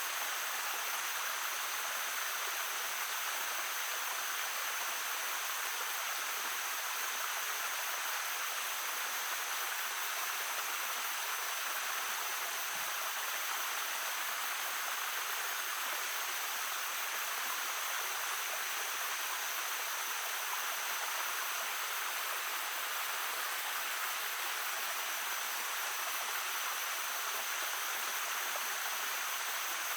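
A babbling stream flowing steadily: an even, unbroken rush of water with a thin, steady high tone running through it.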